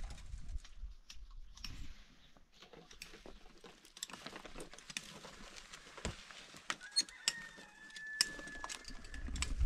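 Quiet, irregular small clicks, ticks and scrapes of gloved hands working chicken-wire mesh against cinder blocks and stones.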